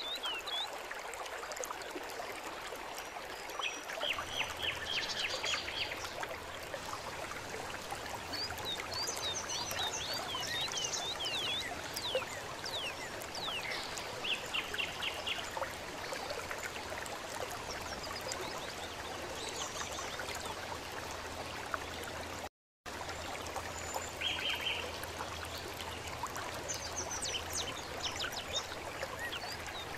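Nature ambience: a stream trickling steadily while many small birds chirp and trill. The sound drops out for a split second about two-thirds of the way through.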